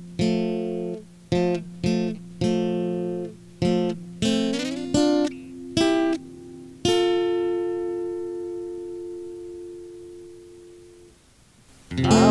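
Guitar intro to a song: about ten chords struck one after another, the last one left ringing and slowly fading away. A fuller band sound starts near the end.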